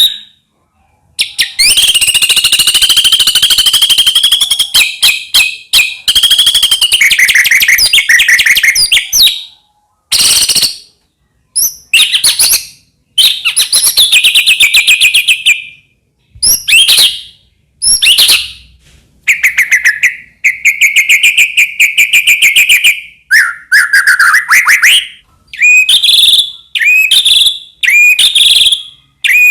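White-rumped shama (murai batu) singing loud, varied full song: fast trills, buzzy rattles and whistled notes in phrases of one to three seconds, separated by short pauses.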